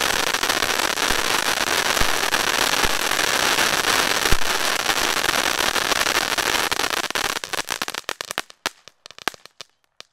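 Shogun Tailgate Party 500-gram firework fountain burning with a dense, steady crackle and a few sharper pops. From about seven seconds in the crackling thins to scattered pops and stops just before the end as the fountain burns out.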